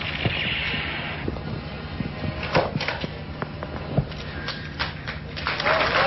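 A few scattered sharp clicks and knocks, then about five and a half seconds in an audience breaks into applause with whoops of cheering.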